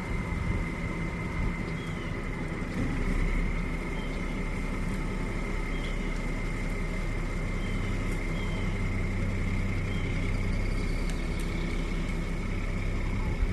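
Winch truck engine running steadily, with a steady high-pitched whine over it and a slight rise about three seconds in.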